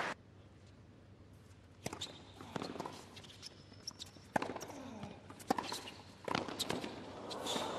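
Tennis rally on a hard court: the ball struck back and forth by racquets, each hit a sharp pop, with ball bounces in between. Faint crowd noise rises near the end.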